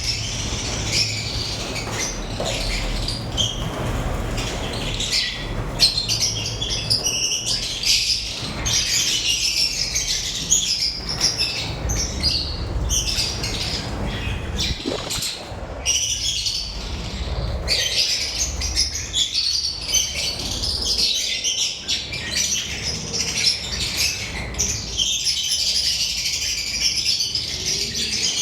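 A group of lovebirds chirping and squawking, with dense overlapping calls that barely pause. A low steady rumble runs underneath.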